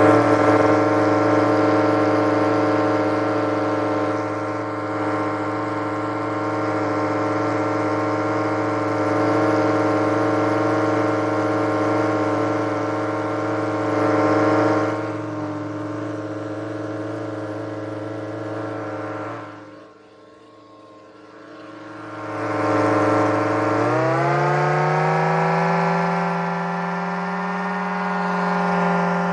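Small home-built supercharged turbine running with a steady pitched whine. About 20 seconds in it fades almost to nothing, then comes back and spins up to a higher steady pitch.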